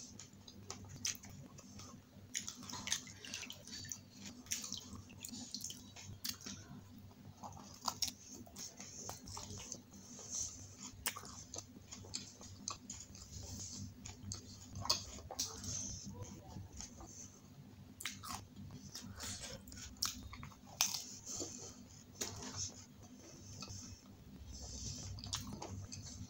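Close-miked chewing of pani puri: the crisp fried puri shells crunching between the teeth in many short, irregular crackles and crunches, over a steady low hum.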